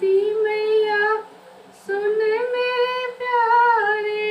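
A woman singing a Hindi song unaccompanied, holding long drawn-out notes. She breaks off for a breath just over a second in, then holds a second long note.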